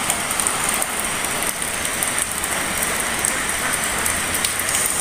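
A steady hiss with a few faint clicks and rustles as plastic wiring connectors and wires of an electric bicycle's controller harness are handled.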